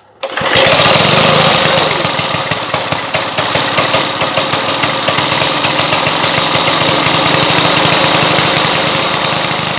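Briggs & Stratton engine on a 1970 Hahn-Eclipse riding mower starting suddenly and then running loud and steady. Its speed hunts a little, a sign that the governor needs adjusting.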